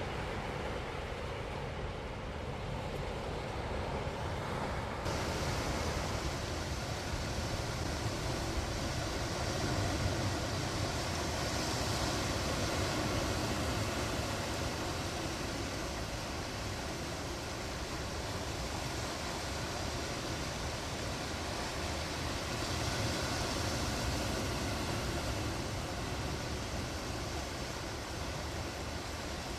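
Steady wash of sea surf and wind, slowly swelling and easing; the hiss brightens suddenly about five seconds in.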